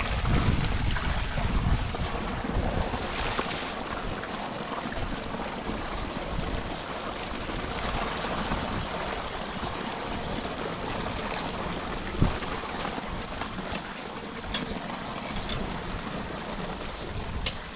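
Rain and rushing storm water making a steady wash of noise, with wind buffeting the microphone in the first couple of seconds. One sharp thump about twelve seconds in, and a few faint ticks.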